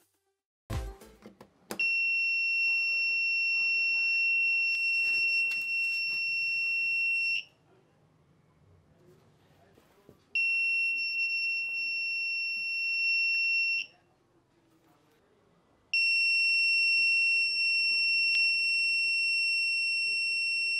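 Small electronic buzzer in a hand-wired LDR security-alarm circuit sounding a steady, piercing high tone three times: about five and a half seconds, a gap of three seconds, three and a half seconds, then again from about 16 s on. A couple of clicks come just before the first tone.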